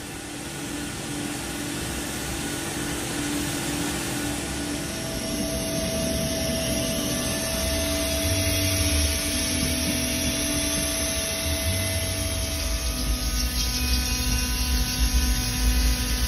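5-axis CNC machining centre milling a machinable ceramic workpiece: a steady spindle tone over the hiss of coolant spray, with a low rumble that grows louder in the last few seconds.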